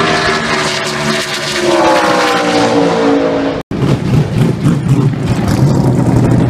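A NASCAR Xfinity race car's V8 engine running at speed on the track, its pitch falling as it goes past. About three and a half seconds in there is an abrupt cut to a race car's V8 running steadily at low speed as it rolls by.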